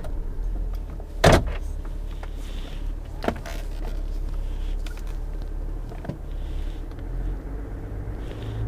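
A 3.0 L Duramax inline-six diesel starting, heard from inside the cab. There is a loud burst about a second in as it fires, then it idles with a steady low rumble.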